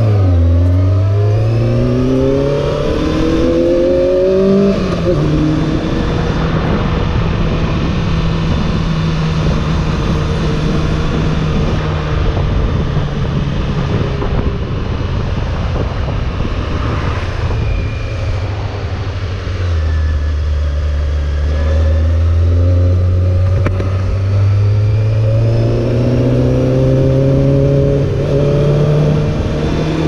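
Honda CBR600F4's inline-four engine pulling up through the gears with rising revs, then holding a steady cruising note. About two-thirds through, the revs drop to a lower note, then climb through the gears again near the end. Wind rushes over the microphone the whole time.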